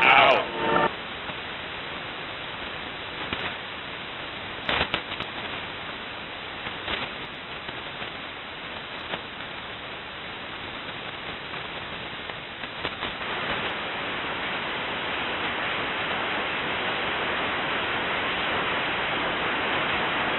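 Shortwave receiver hiss on an idle HF channel in upper sideband mode, with a few sharp static crackles; the hiss grows a little louder about two-thirds of the way through.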